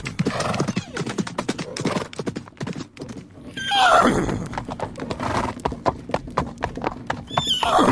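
Horse hooves clip-clopping in a rapid, uneven run of beats, with a horse whinnying loudly about halfway through, a call that falls steeply in pitch, and another whinny starting near the end.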